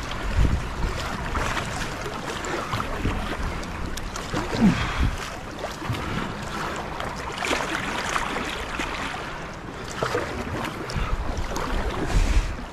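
Wind buffeting the microphone in uneven gusts, over choppy water splashing against a kayak's hull and paddle strokes dipping in.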